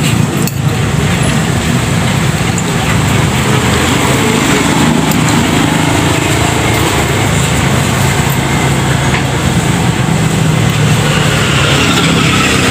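A steady engine rumble over a bed of background noise, holding at an even level with no breaks.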